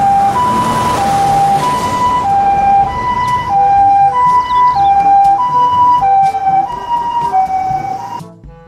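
Japanese ambulance's two-tone siren, alternating evenly between a lower and a higher note about once every second and a quarter, over traffic noise. It cuts off suddenly near the end.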